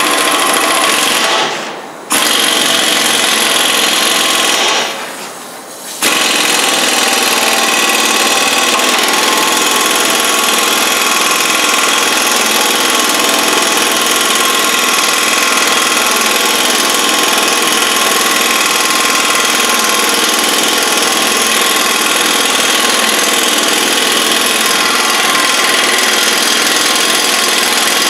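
Impact wrench hammering continuously on the forcing screw of a hub-bearing press, driving a pressed-in front wheel hub bearing out of its steering knuckle. It eases off twice in the first few seconds, cutting back in sharply each time, then runs steadily.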